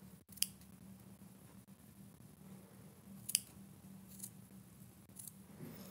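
Scissors making about four short, sharp snips spread a second or so apart.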